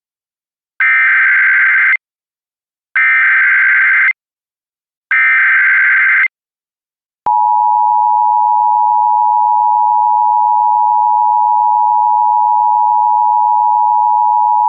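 Emergency Alert System broadcast tones for a civil emergency message: three buzzy bursts of SAME digital header data, each about a second long, then, about seven seconds in, the steady two-note EAS attention signal, which warns that an alert is about to be read.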